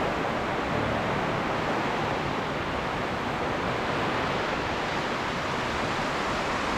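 Steady rushing noise of typhoon wind and heavy rain, unchanging throughout.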